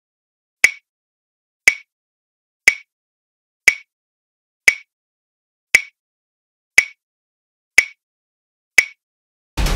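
Countdown timer sound effect: a short, sharp tick once a second, nine times, over silence. Drum-led music starts again right at the end.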